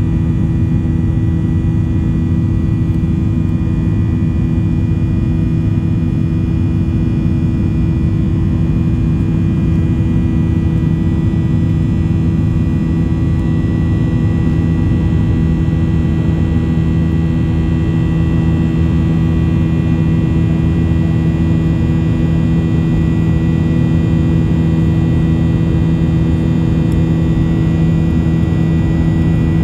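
Boeing 737 jet engines and the rush of air heard inside the cabin during the climb after takeoff: a loud, steady drone with a few steady hums running through it.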